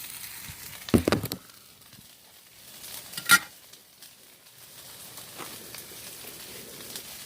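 Food sizzling faintly on a Blackstone flat-top griddle, with handling noises: a clattering knock about a second in and a sharp, ringing clink a little after three seconds.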